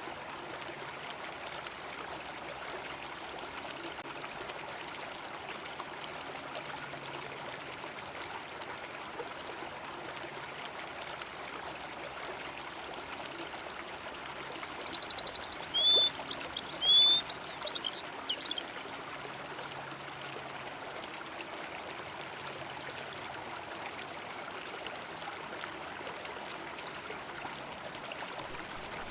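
River water running steadily. About halfway through, a small bird sings one phrase of about four seconds, louder than the water: a rapid high trill followed by several quick chirps.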